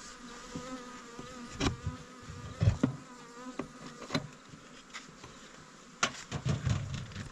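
Honeybees buzzing steadily around an open hive, the buzz wavering slightly in pitch. Several knocks and thuds sound over it, the loudest a bit under three seconds in and a cluster about six seconds in.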